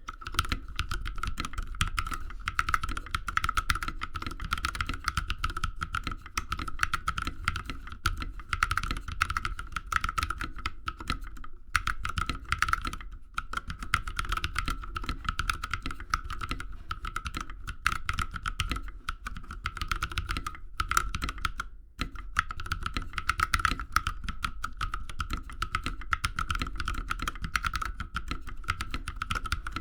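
Continuous typing on a 65% mechanical keyboard with tactile Holy Panda switches, most of them lubed with Krytox 205 Grade 0, in an aluminum case with a brass plate and PBT keycaps. The keystrokes come in a dense stream, with a few brief pauses, and sound quite thocky rather than clacky.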